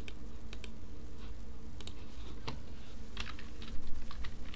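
Computer keyboard and mouse clicks, scattered at first and coming in a quicker run about three to four seconds in, over a steady low hum.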